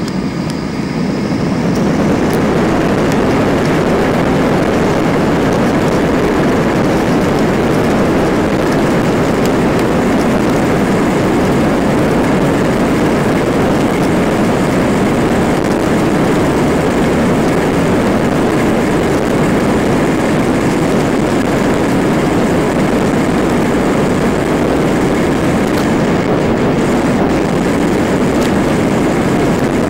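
Airliner's jet engines heard from inside the cabin during the takeoff roll: the noise swells over the first couple of seconds as the engines come up to takeoff power, then holds steady and loud.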